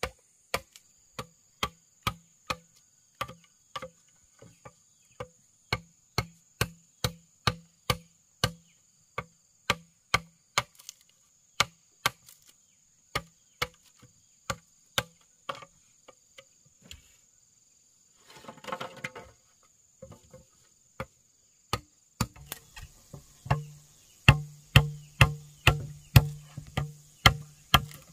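Repeated sharp blows of a hand tool striking wood, about two a second, each with a dull thud, over a steady high drone of insects. The blows pause for a few seconds past the middle, with a short rustle, then resume louder.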